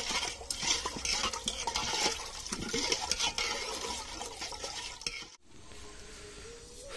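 A long steel ladle stirring fuchka's tamarind water in a large stainless-steel pot: rapid clinks of metal on metal over sloshing liquid, which stop suddenly about five seconds in.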